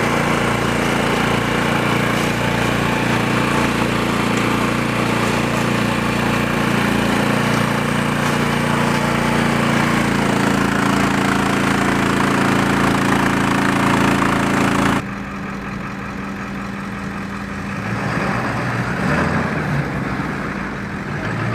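The power cart's Yanmar diesel engine (about 37 hp) runs steadily, driving a round baler through the PTO. About two thirds of the way in, the sound drops abruptly to a quieter run of engine and machinery.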